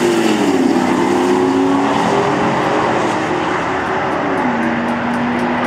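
V8 pickup trucks' engines running hard during a drag run, a steady loud exhaust note whose pitch shifts and drops about 4.5 s in, at a gear change or as the trucks go past.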